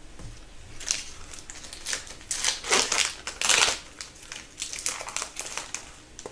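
Foil wrapper of an Upper Deck hockey card pack crinkling as it is torn open and handled, a run of rustles loudest in the middle.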